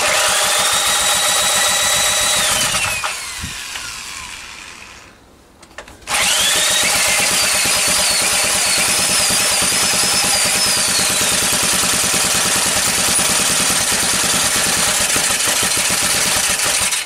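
A corded electric drill with a socket spinning a small engine over to start it. The first run lasts about three seconds, then the whine slides down and stops. After a short pause, about six seconds in, a second, longer run starts with a rising whine that then wavers in pitch.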